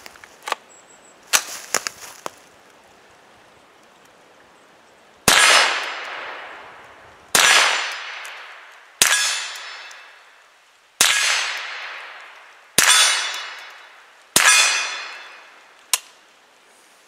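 Mossberg Blaze .22 LR semi-automatic rifle firing six shots at an unhurried pace, one every one and a half to two seconds, each a sharp crack with a long fading tail. A few small mechanical clicks come before the shots and one comes after them.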